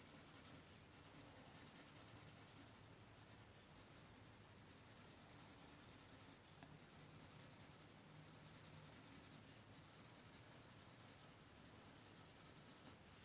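Faint scratching of a felt-tip marker rubbing on paper as a drawing is coloured in.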